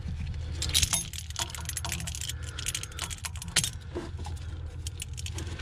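Irregular metal clinks and rattles of hand tools, chain pliers among them, working the sector shaft of a Sheppard M100 steering box loose, over a steady low hum.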